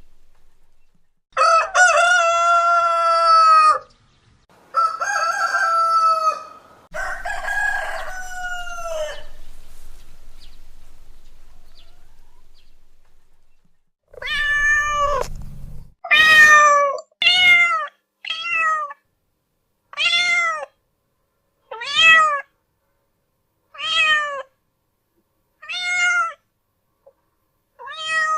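A rooster crowing three times, each crow long and drawn out. About halfway through, a cat takes over, meowing again and again, a short meow every second or two.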